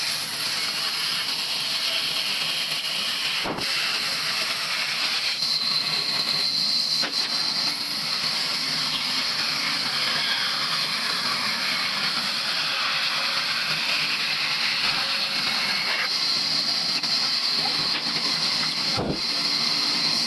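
Sawmill saw cutting steadily through an old wooden beam, a continuous loud hissing cut.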